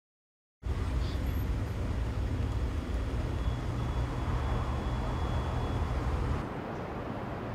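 Outdoor city ambience of road traffic: a steady low rumble with a hiss of distant vehicles. It starts suddenly about half a second in, and the low rumble drops abruptly near the end.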